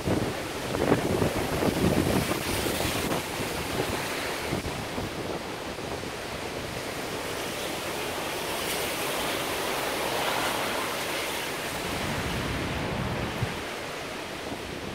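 Typhoon wind and rain. Strong gusts buffet the microphone in the first few seconds, then settle into a steadier rush of wind with falling rain.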